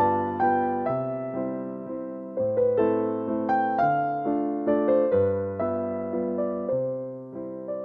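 Slow, gentle instrumental piano music: melody notes struck one after another over a low bass line, each note dying away before the next.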